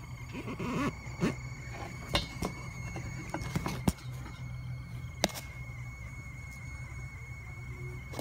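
Handling noise from a phone being worked in among engine-bay parts: scattered sharp clicks and knocks, most of them in the first five seconds or so, over a steady low hum and a thin steady high tone.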